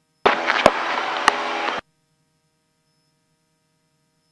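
Aircraft headset intercom briefly opening, letting through about a second and a half of the Cessna 172's engine and cabin noise with three sharp clicks as the headset is handled, then cutting off abruptly.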